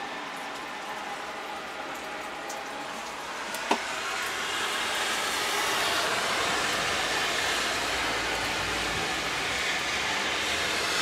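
Steady rushing background noise in a Scania L94IB bus cab, growing a little louder about five seconds in, with one sharp click just before four seconds in.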